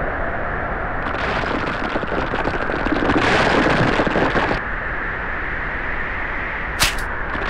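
Storm sound effect: a steady rushing roar of wind, swelling about a second in, loudest around three to four seconds in, then easing back. A short sharp crack comes about a second before the end.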